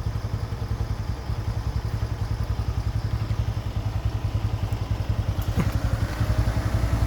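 An ATV engine idling with a steady, fast low pulse. A sharp click comes about five and a half seconds in, then a faint rising whine starts.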